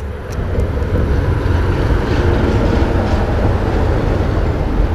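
Loud, steady low rumble of vehicles crossing the concrete overpasses overhead, swelling about half a second in.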